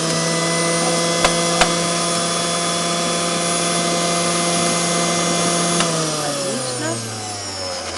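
Motor of an electric kitchen appliance grinding burdock leaves for juice. It runs at a steady pitch, with two sharp clicks about a second and a half in. About six seconds in it is switched off and winds down, its pitch falling.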